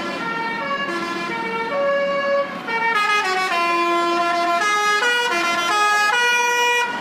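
Bus's Basuri telolet musical air horn playing a tune: held notes that step up and down in pitch, louder from about two and a half seconds in.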